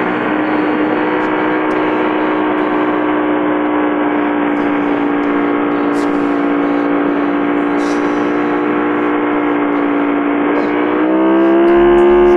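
Ducati 916's V-twin engine heard from on board, holding a steady note at a constant cruise. About eleven seconds in, the throttle opens and the note climbs and gets louder.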